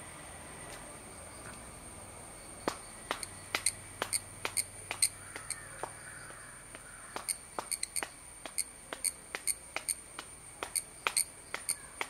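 Cicada singing a steady high-pitched buzz. From about three seconds in, a long, irregular run of sharp clap-like clicks comes, at times several a second, and the cicada's song answers them.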